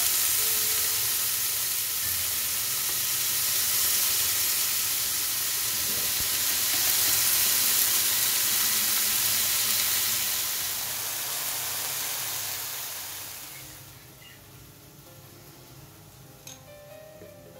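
Chicken pieces sizzling steadily as they fry in a hot nonstick frying pan. The sizzle fades away a few seconds before the end.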